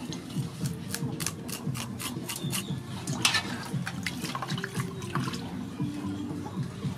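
Water splashing and sloshing in a large aluminium basin as hands wash and rub a whole fish, in quick irregular strokes, the sharpest splash about three seconds in.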